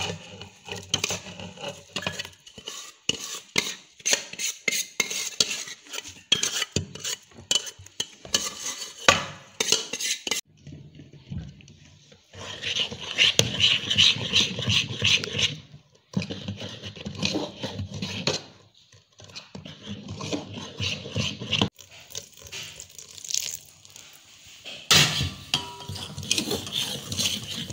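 A metal spoon stirring thick rice-and-urad-dal batter in a steel vessel, with irregular clinks and scrapes against the sides and a few short pauses.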